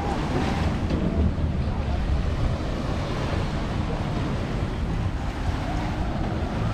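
Wind rumbling on the microphone over small waves washing onto a sandy beach, a steady noise with no distinct events.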